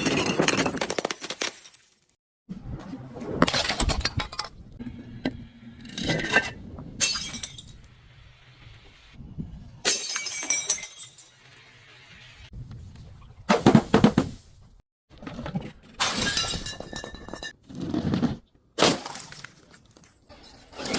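Glass bottles shattering one after another: about eight separate breaks, each a sharp crash followed by ringing, tinkling shards. Several breaks cut off abruptly.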